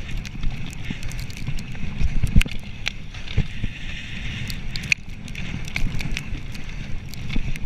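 Mountain bike ridden fast over a rough sandy dirt trail: a steady rumble of tyres and wind, with frequent sharp rattles and knocks from the bike jolting over ruts.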